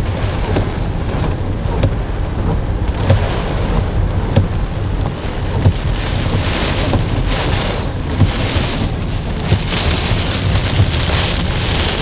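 Heavy rain and gusting storm wind beating on a car, heard from inside the cabin: a steady low rumble of wind buffeting with surges of rain hiss that grow stronger near the end, and a few sharp knocks.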